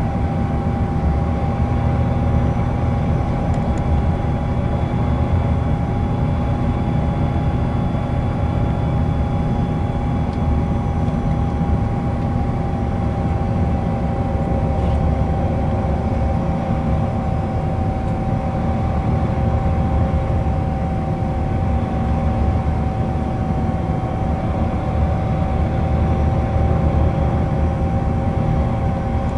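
Inside the cabin of an Iveco Crossway 14.5 LE bus with a Voith automatic gearbox, cruising steadily at highway speed: a low, even rumble of engine and road noise with a steady whine held over it.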